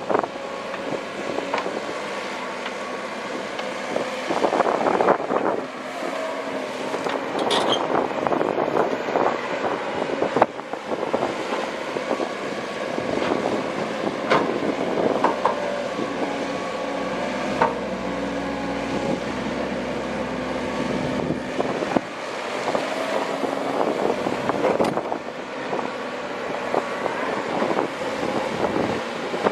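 Komatsu PC130 hydraulic excavator's diesel engine running under working load, its note shifting as it works, with repeated knocks and scrapes of the bucket on river stones and gravel.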